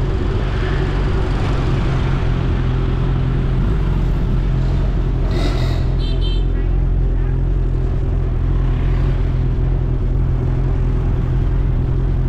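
Motor vehicle engine running steadily with road rumble, with a couple of brief high chirps near the middle.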